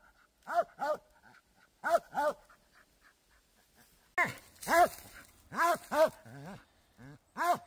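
Squirrel dog barking treed at the foot of a tree, the bark hunters call "talking": a string of short chopped barks, a pause of about two seconds midway, then a quicker run of barks. It is the sign that the dog has a squirrel treed.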